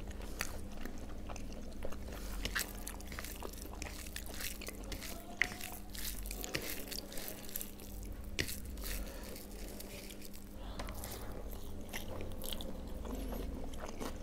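Close-up eating sounds: a person chewing with the mouth closed, with scattered small clicks and crunches, while fingers mix rice and curry on a plate. A faint steady hum runs underneath.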